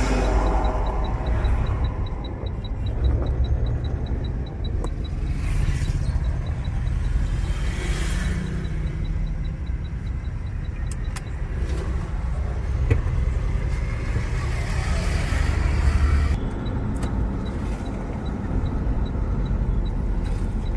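Mahindra Scorpio's mHawk four-cylinder diesel engine running with the No. 2 injector's electrical connector unplugged, cutting out cylinder 2 to test whether the tapping knock traced to that cylinder goes away. A faint quick regular ticking runs over the engine drone for the first half and again near the end.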